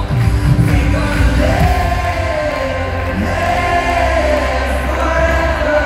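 Live worship band playing in an arena, with an amplified singer holding long notes over a heavy bass and drums, heard from far up in the seats so it sounds distant and echoing.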